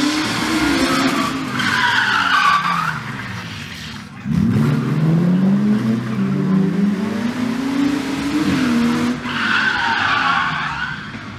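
Two BMW 3 Series (E36) cars drifting, engines revving up and down, with the tyres squealing twice: about two seconds in and again near the end. The engines pick up sharply about four seconds in.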